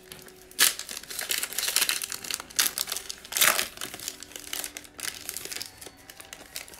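Trading-card pack wrapper crinkling and tearing as it is ripped open by hand, in irregular rustling bursts, loudest about half a second in and again around the middle.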